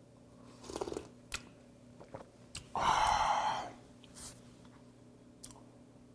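Close-miked mouth sounds of a man eating raw stone sea squirt: a wet slurp about a second in, a few small clicks, and a louder breathy rush lasting nearly a second about three seconds in.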